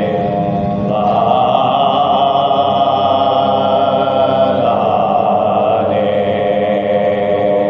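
Soz khwani, a slow Shia lament chanted by a group of voices without instruments, holding long notes that move to a new pitch every few seconds.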